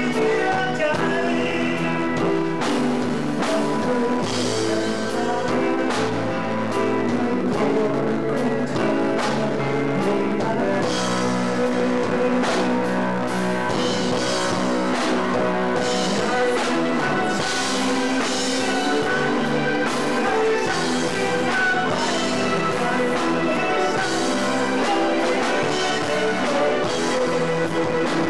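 Rock band playing live: drum kit and guitars, with a vocalist singing into a handheld microphone.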